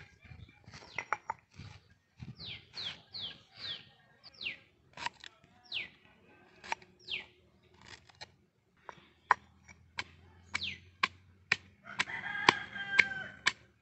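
Stone pestle striking ginger in a stone mortar, giving scattered sharp knocks. Between the knocks a bird repeats short, high calls that fall in pitch, and a rooster crows near the end.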